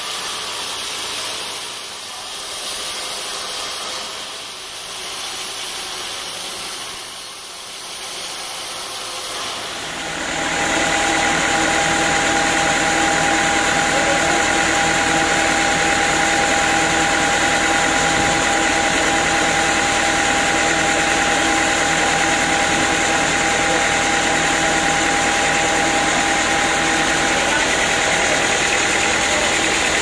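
Band sawmill machinery running. For about the first ten seconds there is a quieter, wavering rushing noise, then suddenly a louder, steady drone with several held tones.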